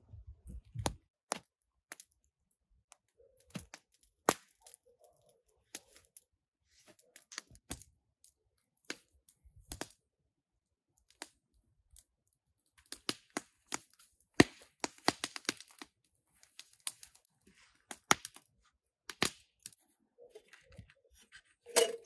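Small twig campfire crackling, with irregular sharp pops and snaps that come thickest around the middle. A few low knocks of sticks being handled in the first second.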